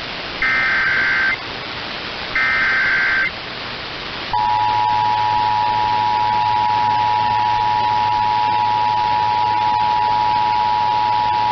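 Emergency Alert System alert: two short warbling SAME digital header bursts about a second each, then about four seconds in the steady two-tone EAS attention signal begins and holds unbroken. This is the opening of a Required Monthly Test alert.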